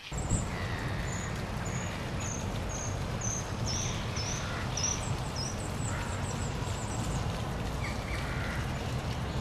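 Steady crackling noise and low rumble of a degraded old film soundtrack, with a run of high, short chirps about two a second that fade out after about seven seconds.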